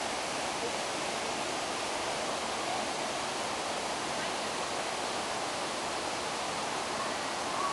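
Steady rush of a waterfall, falling water splashing onto rocks below.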